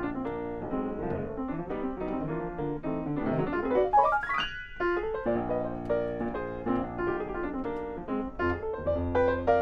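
Grand piano played solo: a busy passage with a fast run climbing into the high register about four seconds in. A brief break follows before the playing resumes.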